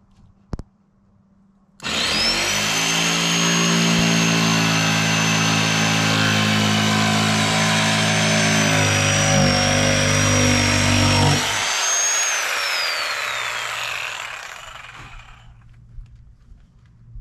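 Corded jigsaw cutting through a sheet of plywood along a traced line. It starts suddenly about two seconds in and runs steadily for about ten seconds; then the cutting stops and the motor's whine falls away as it winds down.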